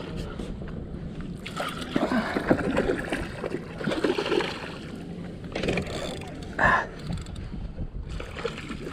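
A hooked bonito thrashing at the surface right beside a kayak, water splashing in irregular bursts.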